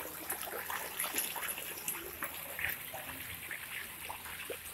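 A crowd of carp feeding at the pond surface: many small, irregular splashes and slurps as the fish jostle for pellets.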